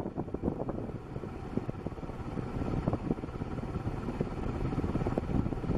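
A 1984 Golden Fan 90 cm ceiling fan running on its second-highest speed, with its strong draught buffeting the microphone as a steady, gusty rumble. On this speed the fan is slow to reach full speed, which the owner puts down to bad bearings.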